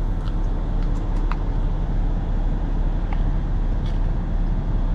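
Steady low rumble of a semi truck's idling diesel engine, heard from inside the cab, with a few faint clicks.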